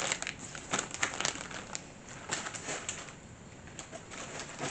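Plastic parts bags crinkling and paper magazines rustling as they are handled and set down, with scattered light clicks and taps.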